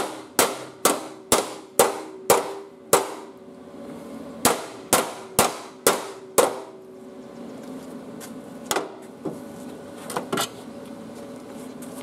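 Steel chipping hammer striking the fresh welds on a steel patch plate in a riding-mower deck: sharp metallic clinks about two a second, each with a short ring. A run of seven strikes, a pause, five more, then a few lighter taps near the end, over a steady hum.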